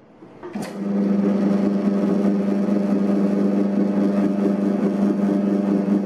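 Electric dough mixer starting up about half a second in, then its motor running with a steady hum while the dough hook turns flour, egg and milk.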